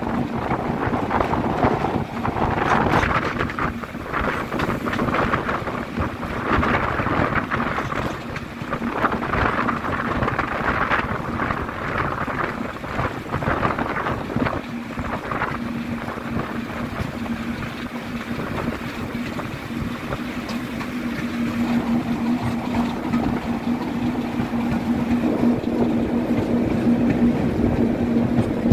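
Class 33 diesel locomotive's Sulzer eight-cylinder engine running as it hauls the train, heard from an open carriage window just behind it, with heavy wind buffeting on the microphone. A steady engine drone comes up about halfway through and grows stronger towards the end.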